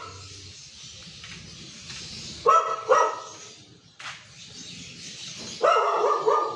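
Dog barking: two sharp barks about two and a half seconds in, then a quick run of barks near the end.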